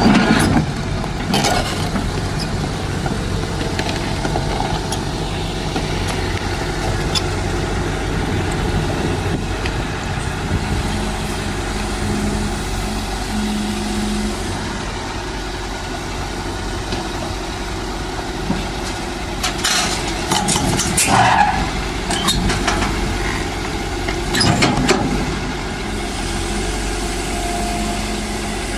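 SANY SY215C crawler excavator's diesel engine running steadily while the machine tracks up the steel ramps onto a low-bed trailer. Sharp metal clanks come through about twenty seconds in and again about twenty-five seconds in.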